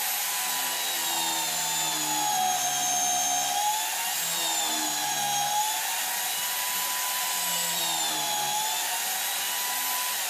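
Corded electric drill, clamped in a homemade drill press, running with a steady whine while drilling into a wooden block; its pitch sags several times as the bit is fed into the wood and bogs under load.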